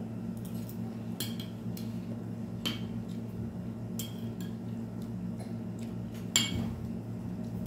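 Plates and cutlery clinking and knocking now and then at a table as people eat, the sharpest knock about six seconds in, over a steady low hum.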